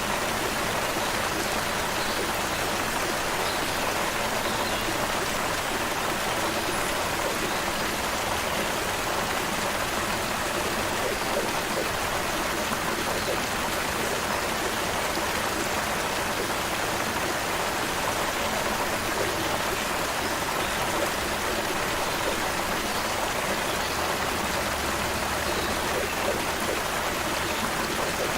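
Creek water flowing steadily, a constant rushing and babbling.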